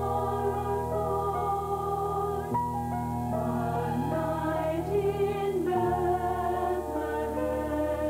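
A choir singing long held chords over an instrumental accompaniment, with sustained bass notes changing every few seconds.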